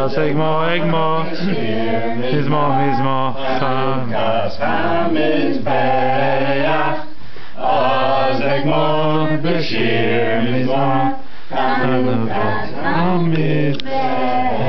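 A small group of men and women singing together without accompaniment, a slow chant-like song in phrases of held notes with short breaks between them.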